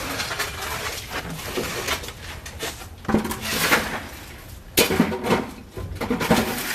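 Irregular clanks, knocks and scraping of metal tools against broken concrete and debris during sewer excavation, with a few louder hits in the second half.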